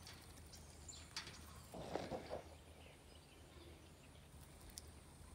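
Quiet outdoor ambience with faint bird chirps and a few light ticks, and a brief scratchy noise about two seconds in.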